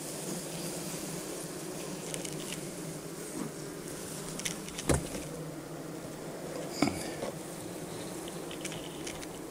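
Honeybees buzzing steadily around an open hive, with two sharp knocks, about five and seven seconds in.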